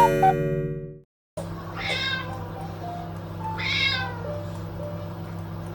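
A pet cat meowing twice, about two seconds apart, over soft background music, which follows a short electronic tone that stops after about a second.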